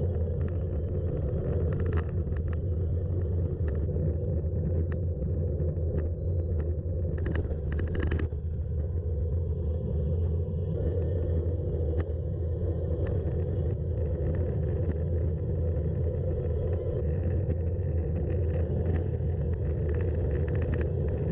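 Wind rumbling on the microphone of a gravel bike riding downhill at speed, with tyres rolling over gravel and scattered short clicks and rattles from stones and the bike.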